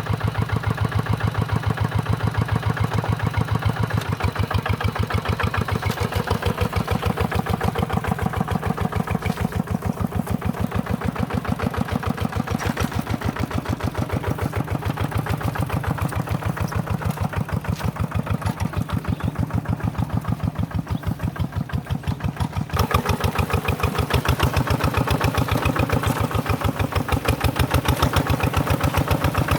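Tractor engine running steadily under ploughing work in mud, with a fast, even firing beat; it gets louder about three-quarters of the way through.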